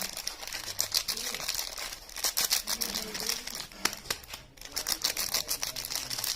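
Soap packaging crinkling and rustling as it is handled and unwrapped close up, a dense run of fast small crackles with a sharper click about two-thirds of the way in.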